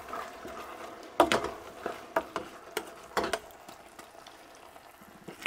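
Spoon stirring onions, garlic, tomatoes and bacon in a stainless steel saucepan on a gas hob, knocking and scraping against the pan several times over a faint sizzle of the frying food.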